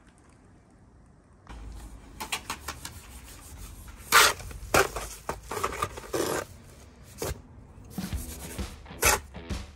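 Bricklaying trowel scraping and scooping mortar in a plastic bucket: a run of sharp scrapes and knocks, the loudest about four seconds in. Background music comes in after about a second and a half.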